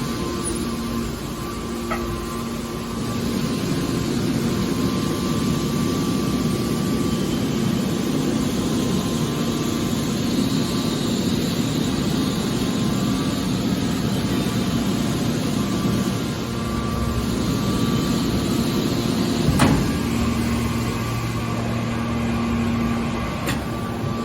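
Hydraulic scrap metal baler running, its power unit giving a steady hum and whine, with a single sharp knock about twenty seconds in.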